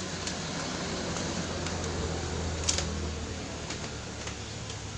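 Steady low machine hum in a small room, like a running electric fan, with a single short click a little after halfway.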